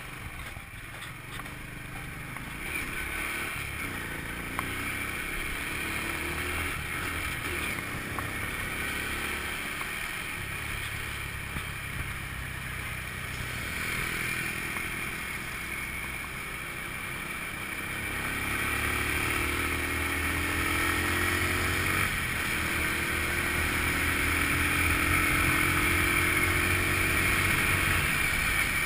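Small Honda motorbike's engine pulling away and running along a road, with wind and road noise on the microphone; the engine note rises several times and grows louder from about two-thirds of the way through as the bike speeds up.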